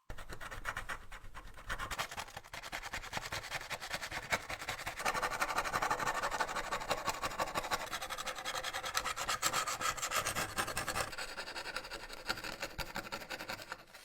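Rapid back-and-forth scrubbing and scraping on a worn metal toy part, a dense run of scratchy strokes that gets busier about five seconds in and eases off about eleven seconds in, cutting off sharply at the end.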